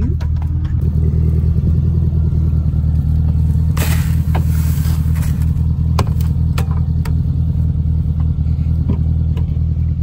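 Grain feed poured from a plastic bucket into a cattle feed trough: a rushing hiss about four seconds in that lasts just over a second, followed by a few sharp knocks. A steady low rumble runs underneath.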